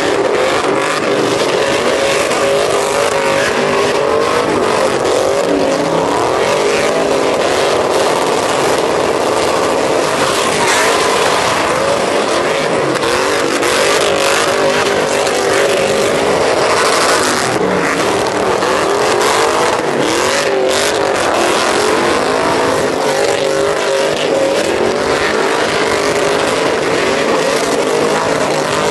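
Pickup trucks doing burnouts and donuts: engines held at high revs, the pitch wavering up and down, over the steady hiss of spinning, smoking rear tyres.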